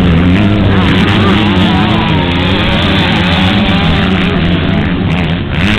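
Two 125cc two-stroke motocross bikes racing close together, their engines revving up and down in pitch as they ride through a turn.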